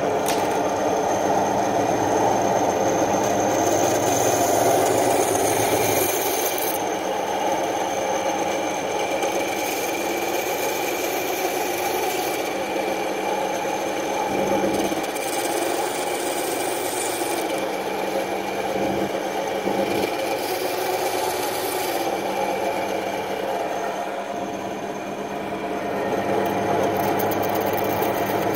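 Small handheld power tool's motor running continuously while cutting down plastic socket parts, its sound shifting every few seconds as the cut goes on.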